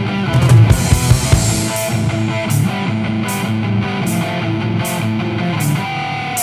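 Rock-style background music with guitar and drums, with regular cymbal hits.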